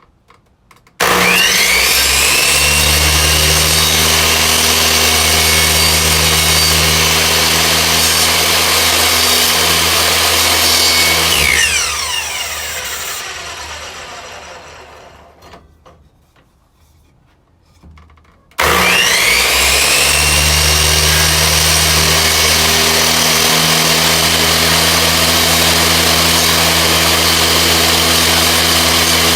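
Electric power tool motor switched on about a second in with a rising whine, running steadily for about ten seconds, then switched off and winding down with a falling whine over a few seconds. A few seconds later it starts again and runs steadily.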